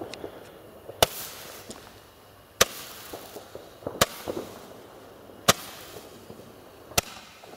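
Weco Roman candle firing five shots, about one every second and a half, each a sharp pop, some with a short hiss trailing after.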